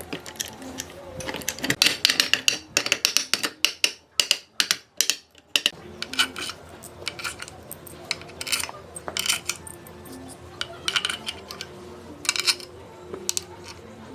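Quick runs of metallic clicks and clinks, from small metal parts being handled or knocked together, over faint background music.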